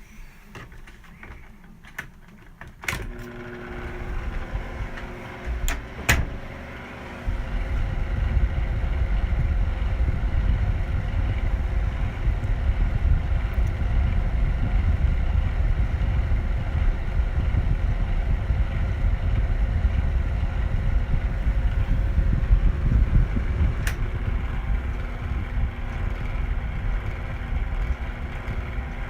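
Vornado box fan running, its motor humming over a steady low rumble from very bad bearings, a sign the fan is about to fail. A few clicks come in the first seconds, the fan starts about three seconds in, and it gets much louder about seven seconds in, then runs steadily.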